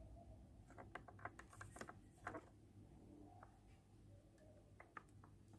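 Near silence with a scatter of faint, light clicks and taps, such as small handling noises.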